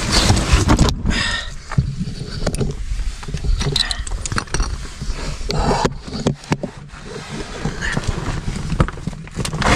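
Clothing and gear scraping and rustling against rock, with irregular knocks, as a person squeezes and crawls through a narrow cave crack.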